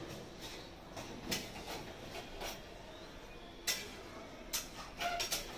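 Kitchen clatter: a few scattered light clicks and knocks of utensils being handled at the stove, with a short cluster near the end, over a faint steady hum.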